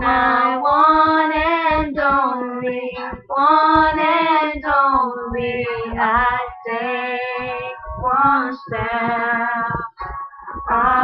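A girl singing a pop song unaccompanied, phrase by phrase with long held notes and short breaks between lines.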